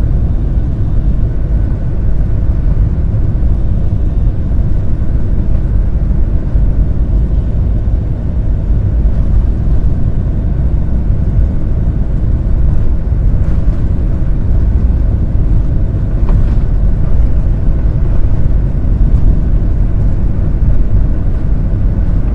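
Steady low rumble inside the cabin of a Boeing 737-700 taxiing on the ground: its CFM56-7B engines at taxi power and the wheels rolling over the taxiway.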